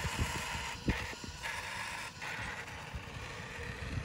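Small electric drive motor of a toy Ducati RC motorcycle whining steadily as it runs, dropping out briefly about a second in and again at two seconds, over a low irregular rumble.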